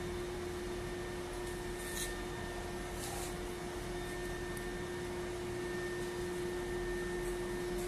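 Steady machine hum with a constant tone from an air-cooled thermal cutter (hot knife) running while its heated blade trims excess EVA interlayer film from a laminated glass edge. Two brief soft hisses come about two and three seconds in.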